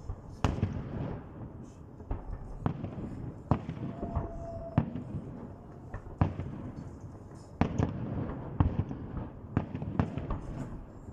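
Fireworks salute: aerial shells bursting with about a dozen sharp bangs at irregular intervals, with low rumbling between the bursts.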